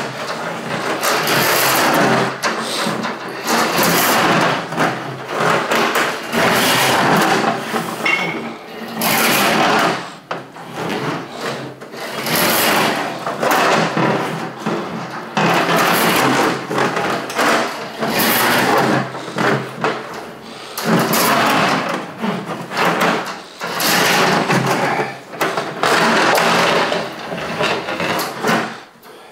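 Milwaukee M18 drain-cleaning machine running with its 7/8-inch steel cable rattling and scraping as the cable is pulled back out of a sewer drain, in repeated spurts of a second or two with short pauses between.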